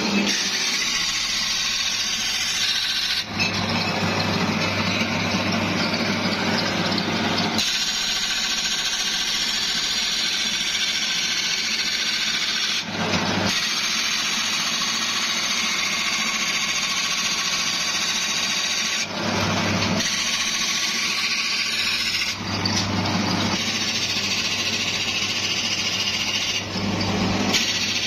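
Motor-driven spinning disc grinding the edge of a steel sickle blade: a steady harsh grinding noise over a low motor hum. The sound changes abruptly several times as the blade is worked.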